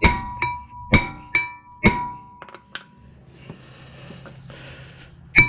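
A hammer striking the front brake rotor of a 2013 Lexus GS350, each blow a ringing metallic clang. Five quick strikes come in the first two seconds, then a few lighter knocks, then one more hard strike near the end. The blows are meant to break the rotor free where corrosion has seized it to the hub.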